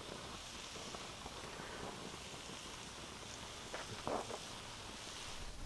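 Bacon sizzling faintly and steadily on a preheated stone grilling slab as the raw pieces are laid on it, with a couple of soft taps as more pieces are set down about four seconds in.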